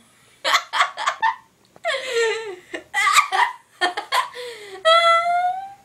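A girl laughing hard in repeated bursts during a hiccup fit, the laughter broken by short sharp catches, ending in a long high-pitched squealing laugh near the end.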